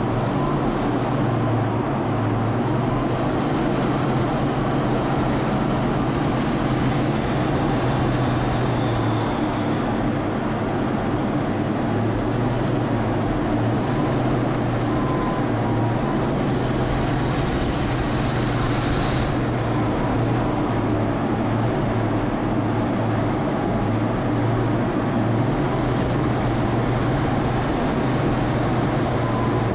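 Aircraft engine noise: a steady, unbroken drone with a low hum that holds at an even level throughout.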